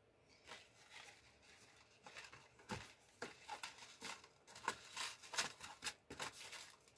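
A white cardboard jewellery box being unfolded and opened by hand: faint rustles and crinkles of paper and card with small taps, sparse at first and busier from about two seconds in.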